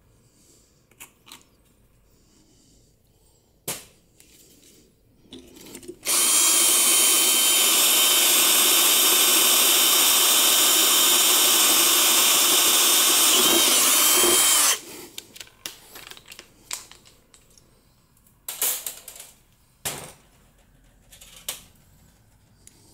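Power drill running steadily for about nine seconds, boring out a sheared bolt in an exhaust manifold to enlarge the pilot hole. It starts abruptly about a quarter of the way in and cuts off about two-thirds through, with scattered clicks and knocks from handling the work before and after.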